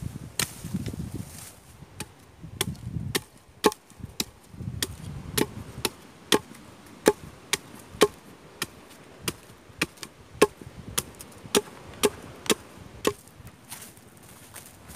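Machete blade chopping into wood: a few scattered strokes at first, then a steady run of sharp chops, about two a second, as a wooden stake is cut to a point against a wooden block.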